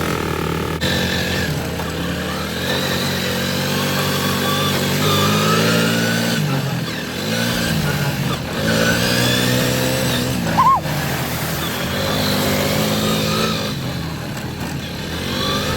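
ATV quad bike engine running and revving, its pitch rising and falling several times as the throttle is worked. A short high squeak cuts in about two-thirds of the way through.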